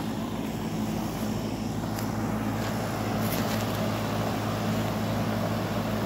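Outdoor unit of a 2022 Tempstar 4-ton heat pump running in heat mode: a steady hum from its Copeland scroll compressor and condenser fan.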